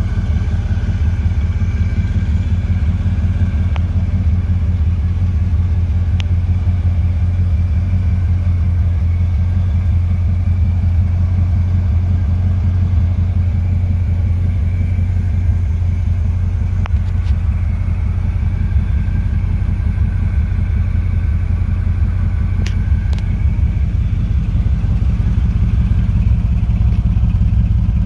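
1969 Corvette's 350 cubic-inch V8 idling steadily through its factory side pipes, a low even exhaust note with no revving.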